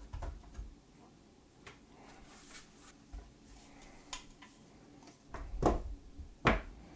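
Handling noises from a metal-cased power supply box: scattered light knocks and rattles, then two louder clunks near the end as it is set down on the mat.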